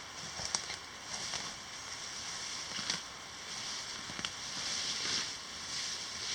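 Wood fire crackling: a steady hiss broken by scattered sharp pops.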